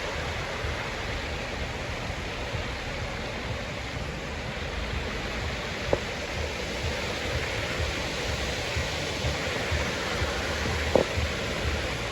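Steady rush of a waterfall, with a fluttering low rumble beneath it and two brief ticks, one about halfway through and one near the end.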